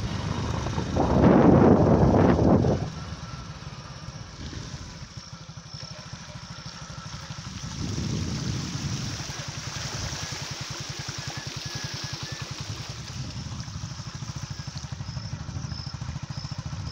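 Motorcycle engine running steadily under way, with an even pulsing from its firing. Near the start there is a loud rush of wind on the microphone that lasts about two seconds.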